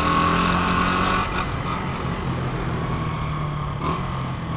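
Honda CG 125 Fan's single-cylinder four-stroke engine running steadily while the motorcycle cruises down a street.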